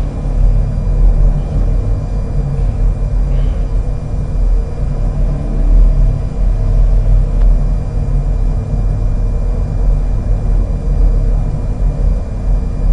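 Steady low rumble with a few faint constant hum tones above it, an unbroken background ambience with no distinct events.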